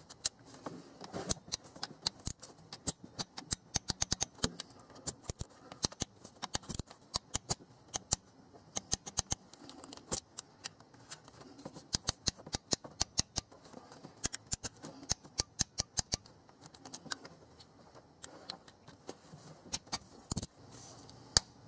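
Ratcheting torque wrench clicking as it tightens water pump bolts on the final torque pass to 228 inch-pounds (19 ft-lb). Sharp clicks come in short quick runs with pauses between strokes.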